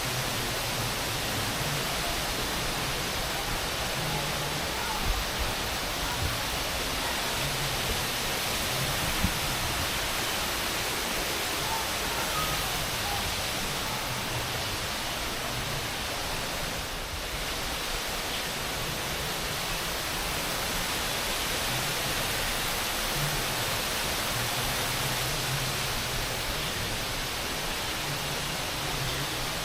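Continuous, even rushing noise, like falling water, with a couple of faint thumps about five and nine seconds in.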